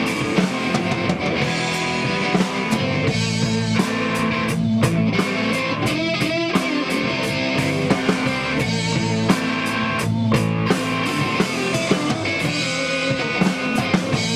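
Live rock band playing instrumentally: electric guitars and electric bass over a drum kit, amplified and steady.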